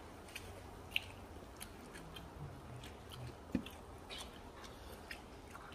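Quiet chewing, with scattered soft mouth clicks and smacks, from people eating fried stuffed tofu.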